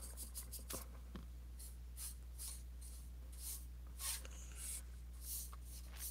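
Bristle brush strokes of oil paint on the painting surface: a run of short, scratchy swishes about two a second, over a steady low hum.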